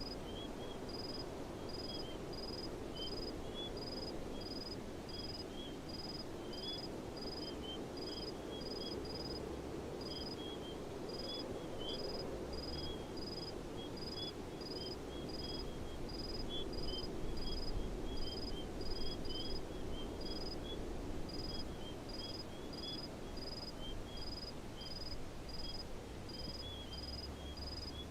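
Outdoor ambience: an insect chirping steadily at an even pace of about two chirps a second, with faint scattered twittering above a low background hiss.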